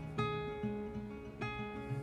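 Background music: an acoustic guitar plucking notes, with a new note struck about every second.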